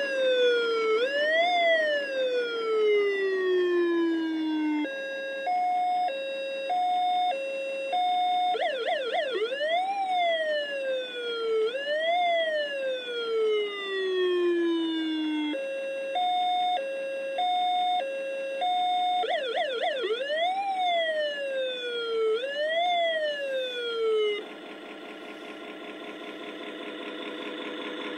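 Nylint toy fire engine's electronic siren playing through its built-in speaker. It cycles through long rising-and-falling wail sweeps, a two-tone hi-lo, and brief quick yelps, in that order, and the sequence repeats. Near the end the siren gives way to a steady buzzing tone that slowly grows louder.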